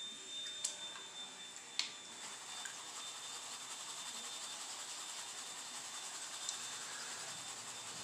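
Water swirling and washing through a plastic gold pan as paydirt is panned in a tub of water: a steady watery hiss, with two light clicks in the first two seconds.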